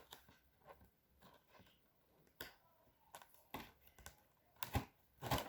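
Scattered light clicks and taps of a cardboard game box and its parts being handled and set up, the loudest knock near the end.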